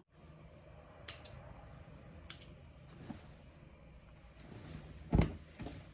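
Quiet handling of small scissors and cloth: a few light clicks, then a louder thump about five seconds in, over a faint steady room hum.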